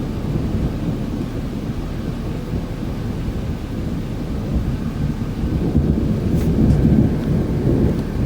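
Thunder rumbling low and continuously through a thunderstorm, swelling a little in the second half.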